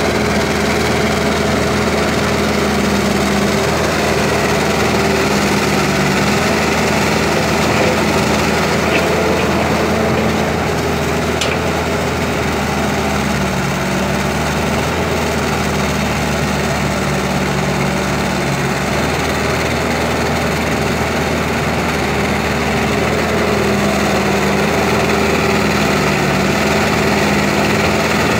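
Heavy-equipment diesel engine running steadily at work, its pitch sagging a little for several seconds in the middle. A single short, sharp tick comes about eleven seconds in.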